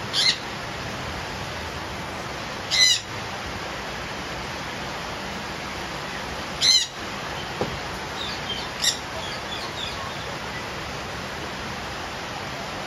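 Caged parrots, Indian ringneck parakeets among them, giving loud harsh squawks about four times several seconds apart, with softer chirps between, over the steady hiss of falling rain.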